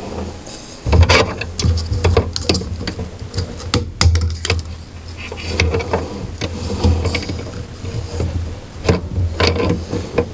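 Irregular clicks, knocks and rattles of hands handling parts inside a desktop computer case, with a recurring low rumble.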